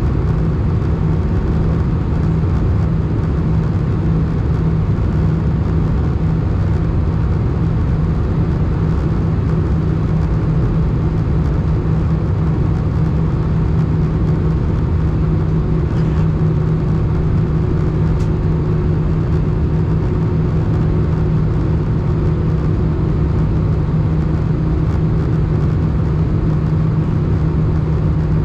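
Steady cabin noise of an Airbus A319 descending toward landing, heard from a window seat over the wing: the drone of the jet engines and airflow rush, with a strong steady low hum.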